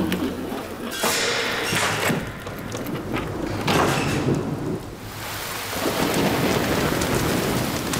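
Thunderstorm: three loud thunder cracks in the first half over heavy rain, then steady heavy rain.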